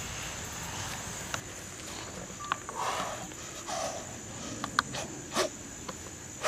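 Insects droning steadily in a high, even tone. A couple of brief mid-pitched sounds come around the middle, and a few sharp clicks follow about five seconds in.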